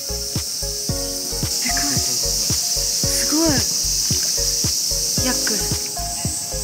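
Insects buzzing: a steady high chorus. Under it runs background music with a regular beat and held chords.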